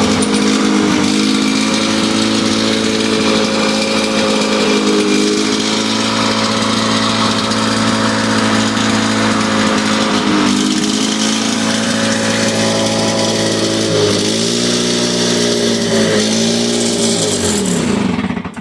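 Two two-stroke lawnmower engines, a Suzuki-engined Toro and a Lawn-Boy, running together at full throttle, their notes overlapping. The pitch sags a few times in the last few seconds, and then the engines wind down and stop as they are shut off, just before the end.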